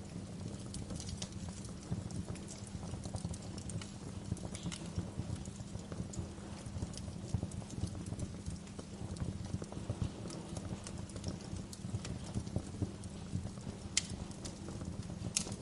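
Wood fire crackling in a fireplace: a steady low rumble of the burning fire with frequent small irregular pops, and a couple of sharper pops near the end.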